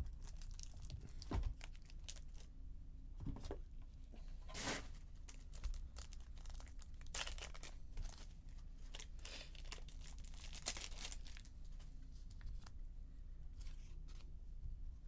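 Trading-card packaging being torn and crinkled by hand: irregular short rips and rustles, some louder than others.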